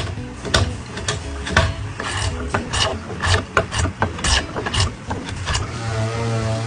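Hand tool working a hardwood bracket in short scraping strokes, about two a second. Near the end a steady hum sets in.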